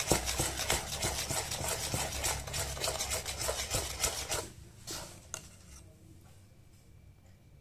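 Metal spoon stirring thick idli batter in a steel vessel, with quick scraping and clicking against the sides as the salt is mixed in. The stirring stops about four and a half seconds in, followed by a single light clink.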